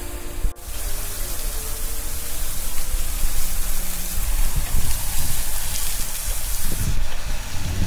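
Steady rushing hiss of falling water, starting about half a second in after a brief dip in sound.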